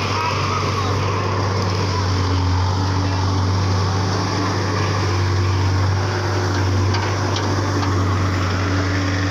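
Engine running steadily at a constant low speed, a continuous low drone with no revving.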